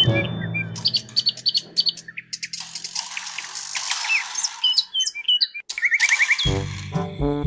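Bird chirps and tweets, short pitched calls, over a rushing noise. A music track fades out about a second in and comes back near the end.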